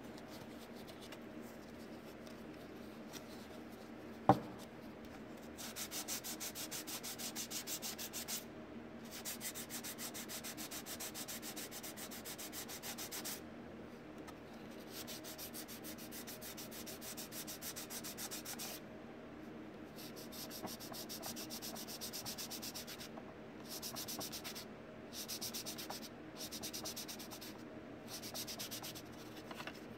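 Sandpaper on a sanding block rubbing over a primed plastic body fender in rapid back-and-forth strokes, in runs of a few seconds with short pauses, starting about five seconds in: filler primer being block sanded back to find high spots. A single sharp click about four seconds in is the loudest sound.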